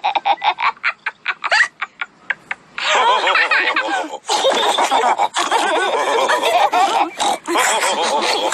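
Cartoon pig characters laughing and snorting: quick short bursts at first, then several voices laughing together from about three seconds in.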